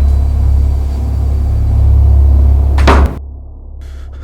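A loud, deep, steady rumbling drone that swells about two seconds in, then ends in a single loud slam-like hit just before three seconds, after which it cuts off suddenly.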